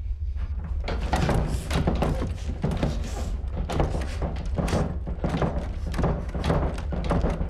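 A closed door being banged on and rattled hard and fast, several knocks a second, starting about a second in, as its knob is held shut from the inside. A low steady rumble runs underneath.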